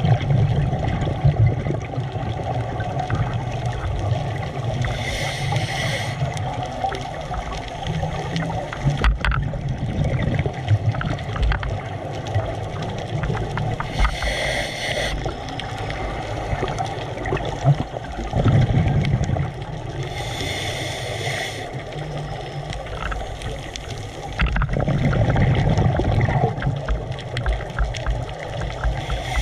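Scuba diver breathing through a regulator underwater: a short hiss on each inhalation a few times, six to nine seconds apart, between low, rumbling gurgles of exhaled bubbles.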